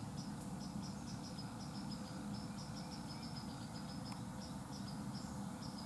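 Crickets chirping in short, evenly repeated pulses, about three or four a second, over a low steady hum.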